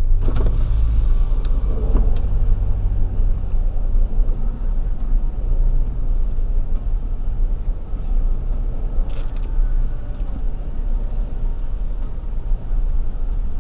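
Car driving at low speed, a steady low rumble of engine and road noise.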